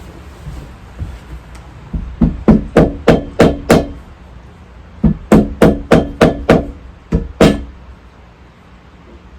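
Hammer blows with a short ring, in two quick runs of about six or seven strikes each, roughly three a second, with a couple more near the end: a part being tapped into place.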